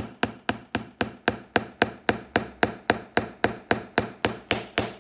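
Hammer driving small nails into a boot sole, a rapid, even run of strikes at about four a second.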